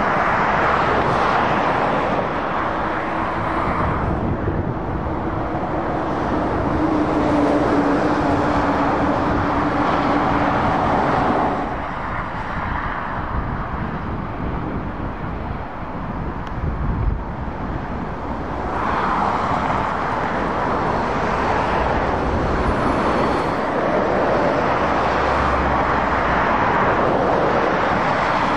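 Heavy lorries and cars driving past on a motorway: steady tyre and engine noise, with a low engine drone for several seconds early on. It goes quieter for a few seconds around the middle, then the traffic noise builds again.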